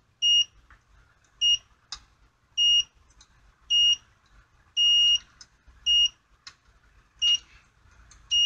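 Milwaukee digital multimeter's continuity tester beeping: eight short, high, steady beeps about a second apart as a test wire is stepped across the contacts of a 110 block bridge, with faint clicks of the wire on the clips between them. Each beep signals continuity on that contact, showing the IDC contact is punched down correctly; a contact without continuity gives no beep.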